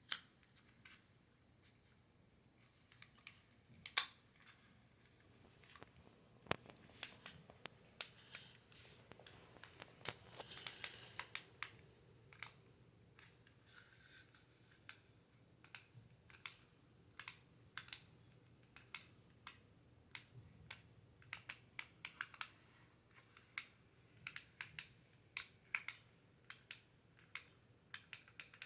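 Faint, irregular clicks and taps of small plastic parts being handled, from a miniature remote-control car and its controller, with a brief rustling scrape about ten seconds in.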